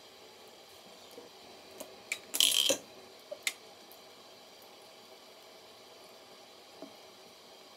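A short clatter of small hard objects knocking together about two and a half seconds in, with a few single clicks before and after it, as makeup brushes and a bottle are handled on a bathroom sink. Under it a thin stream from the faucet runs with a faint steady hiss.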